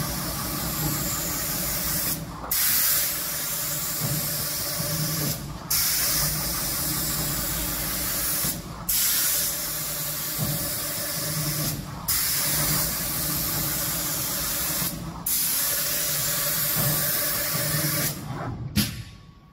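Spray guns of an automatic door-painting machine hissing as they spray a wood door, breaking off briefly about every three seconds, with a steady low hum underneath. The spraying stops just before the end.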